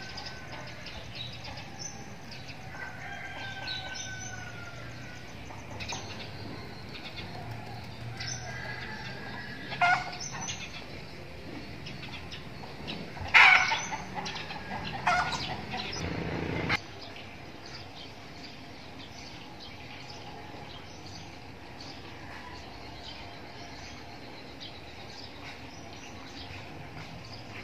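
Songbirds chirping with short whistled calls, and domestic chickens calling, loudest in a burst a little past halfway. About two-thirds of the way in the calls stop abruptly, leaving only steady background noise.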